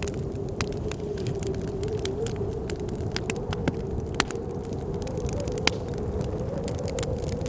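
Wood fire crackling, with frequent irregular sharp pops, over a steady low rush and a thin wavering whistle of blizzard wind.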